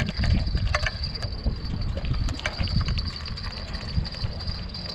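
Wind rumbling on the microphone, with a steady high-pitched drone and a few faint clicks.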